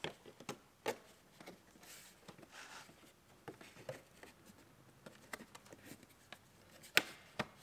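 Plastic dashboard side trim panel being handled and pushed into place: faint scrapes and small clicks, with a sharper click about seven seconds in.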